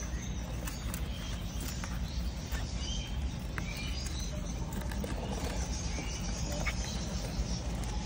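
Albino lovebird chicks giving short, scattered chirps, over a low steady rumble.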